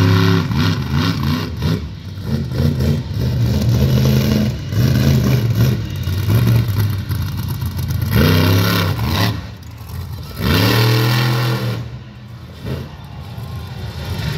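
Monster truck's V8 engine revving hard, its pitch climbing and falling over and over. Two big rev swells come about eight and ten and a half seconds in, and the engine drops back lower near the end.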